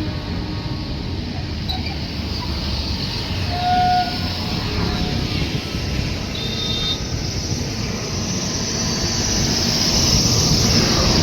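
Train running on the rails: a steady low rumble with a couple of brief faint squeals, growing a little louder and hissier near the end.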